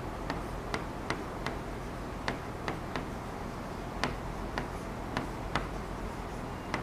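Chalk clicking and tapping on a blackboard as words are written: sharp, irregular clicks, two or three a second with short gaps, over a steady low room hum.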